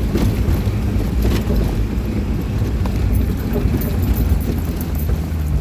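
Vehicle engine running steadily under load in a low gear while climbing a rough, steep dirt track, with scattered knocks and rattles from the vehicle jolting over the ground.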